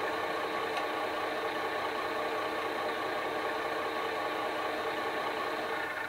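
Recorded Class 21 diesel engine idling steadily, played by a model locomotive's DCC sound decoder through its small onboard speaker.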